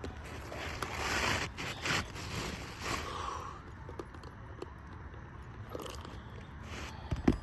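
Asphalt roof shingles scraping and crunching in irregular strokes as a replacement shingle is worked in under the course above. A sharp knock near the end.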